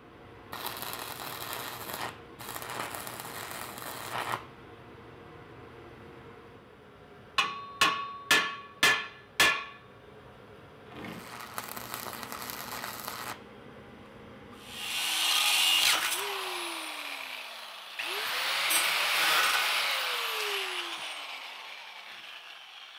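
Stick welding arc crackling in three short runs, with five sharp, ringing metal strikes in quick succession between them. Later a power tool runs twice, each time winding down with a falling whine.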